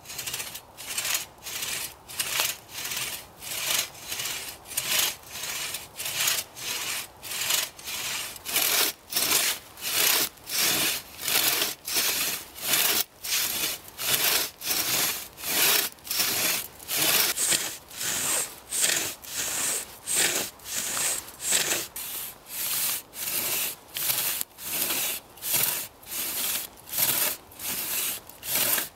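Antique two-man crosscut saw, freshly sharpened, cutting through a fallen log, worked back and forth at an even pace of about two strokes a second, each stroke a scrape of the teeth through the wood.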